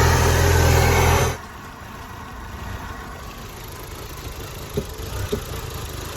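Audi A4 1.8T turbocharged four-cylinder engine running with a steady note, loud for about the first second, then cutting off sharply to a much fainter low running sound.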